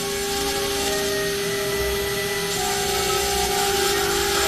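CNC router spindle running with a steady high whine while its engraving bit cuts a line into a sheet, with a hiss of cutting noise over it. The whine drops slightly in pitch near the end.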